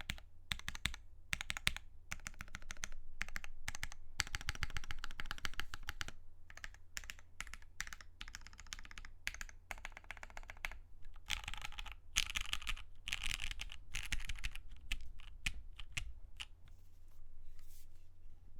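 Typing on a custom O-ring-mounted 60% mechanical keyboard with a UHMWPE plate, lubed Gateron Ink Black linear switches and GMK keycaps: fast runs of keystrokes broken by short pauses, thinning to scattered presses near the end.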